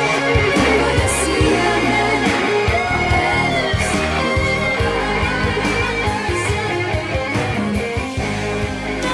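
Music: an instrumental stretch of a pop love song, with a guitar carrying the melody over bass and backing.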